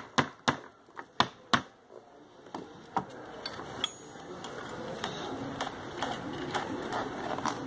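Sharp taps and clicks of hand tools working rattan cane against a wooden chair-seat frame while a cane strand is pulled tight and fixed. About six come in the first second and a half, followed by faint rustling and a few lighter clicks.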